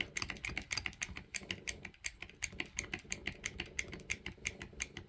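Ratcheting wire crimper clicking rapidly, about eight clicks a second, as its handles are squeezed closed on a terminal and wire.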